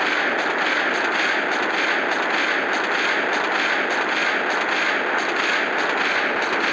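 Continuous, steady crackling roar, heaviest in the middle and upper range, with no break or single bang: a sustained explosion-like sound presented as a 'nuclear' blast sound.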